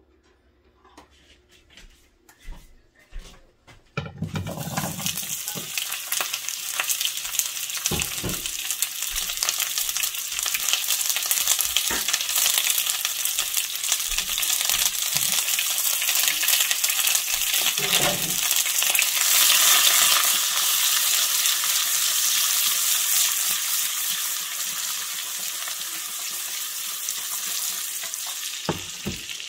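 Sliced zucchini, carrots and whole mushrooms frying in a pan of hot fat. A loud, dense sizzle starts suddenly about four seconds in as they hit the fat, and a few knocks of stirring come through it.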